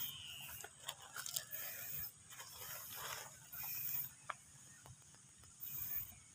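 Thin plastic kite sail crinkling and rustling as it is handled and adjusted, with scattered small clicks.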